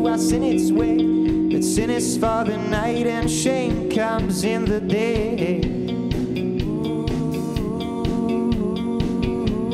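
Live garage rock from a two-piece band: electric guitar over a steady drum-kit beat. A bending, wavering melody line rides on top for the first five seconds or so, then the guitar settles into steady held chords.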